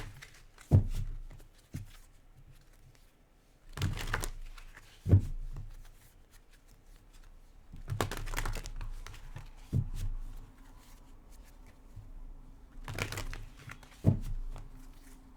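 Tarot cards being handled: four brief papery swishes of the deck, each followed by a sharp knock as it meets the table.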